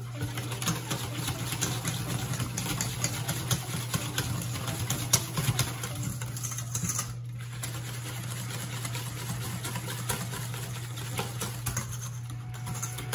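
Wire whisk beating a thick mayonnaise-based sauce in a stainless steel bowl: a rapid, continuous clatter of the wires clicking and scraping against the metal, with a couple of brief breaks. Under it runs a steady low hum.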